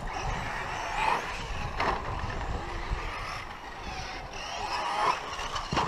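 Electric 4wd short course RC trucks racing on a dirt track: the whine of their motors and gears rising and falling as they accelerate and brake through the corners, over a steady hiss of tyres on dirt.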